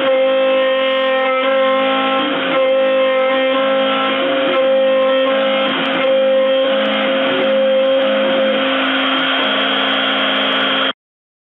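CNC router spindle running with a steady high whine while its 6 mm cutter rough-mills a wood blank turning on the rotary axis, with shifting lower tones from the axis motors as the machine moves. The sound cuts off suddenly near the end.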